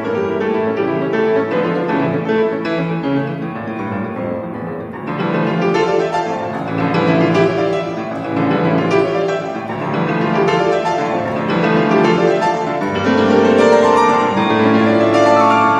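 Grand piano played solo: a fast, dense classical passage that grows louder and brighter about five seconds in.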